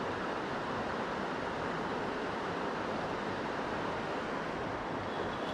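Steady rushing of river water flowing past.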